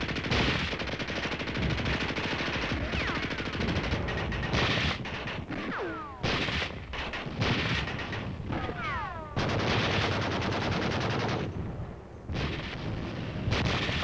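Rapid battle gunfire: rifles and machine guns firing in dense overlapping volleys, with falling whistles cutting through it around the middle. The fire slackens briefly near the end, then picks up again.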